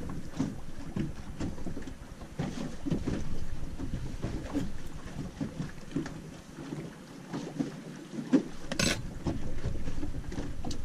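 Wind buffeting the microphone, with water lapping against the hull of a small boat. A single short, sharp click comes near the end.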